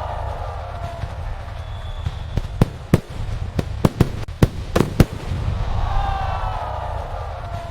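Fireworks going off: a continuous low rumble of booms with a dozen or so sharp cracks at irregular intervals.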